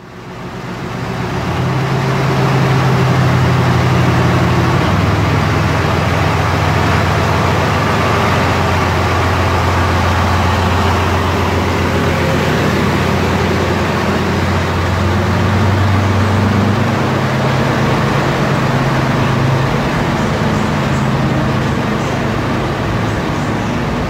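SM30 diesel shunting locomotive's engine running hard as it pulls away with its train, fading in over the first couple of seconds. The engine note shifts about five seconds in and again around seventeen seconds in.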